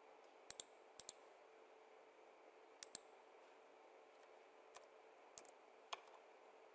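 Faint computer mouse clicks, about six times, most as quick pairs of clicks, over a faint steady hiss and hum.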